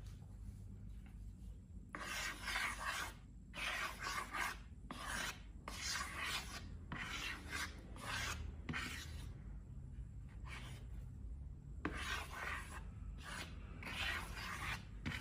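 Repeated short rubbing, scraping strokes, each under a second, starting about two seconds in, with a pause of about two seconds near the middle.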